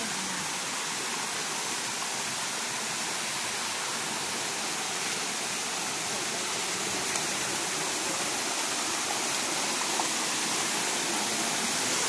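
Small waterfall and its stream rushing steadily over rocks, getting a little louder toward the end as it draws closer.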